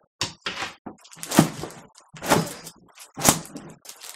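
A person's body thumping and rustling on a carpeted floor, in sharp strokes about once a second, while falling and scrambling through death-drop attempts.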